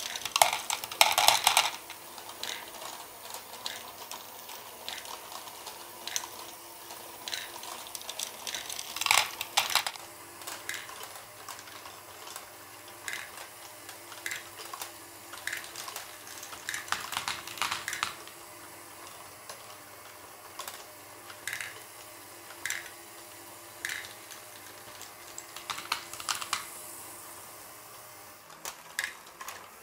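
Plastic Lego balls rolling and clattering on a Lego rocking platform: scattered clicks and ticks, with a few louder bursts of rattling as groups of balls roll across. A Lego motor cranking the platform hums faintly and steadily underneath.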